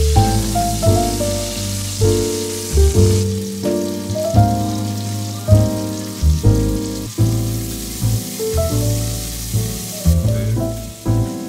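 Sweet Italian sausage sizzling as it browns in hot olive oil in a Dutch oven, the hiss strongest in the first three seconds. Background music with piano-like notes and a bass line plays throughout and is the louder sound.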